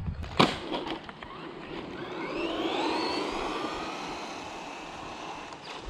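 Small electric motor of a toy-grade RC car whining as it speeds up, its pitch rising and then sinking slowly, after a sharp knock about half a second in.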